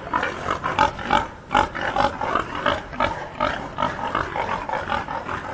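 A group of pigs calling at once: many short, overlapping grunts and squeals, with a few louder, sharper calls in the first two seconds.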